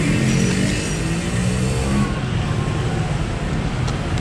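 Street traffic: a vehicle engine close by rises in pitch as it speeds up over the first second or two, over a steady traffic rumble.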